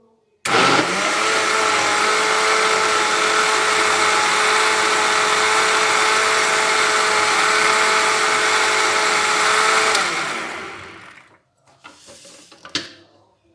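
Electric blender motor blending a liquid mix of milk, yogurt and lemon juice. It starts abruptly about half a second in, runs steadily, and is switched off near the end, spinning down over about a second. A few light knocks follow.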